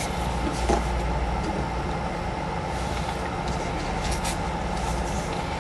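Steady low background rumble, with a few faint clicks of plastic puzzle-cube pieces being handled.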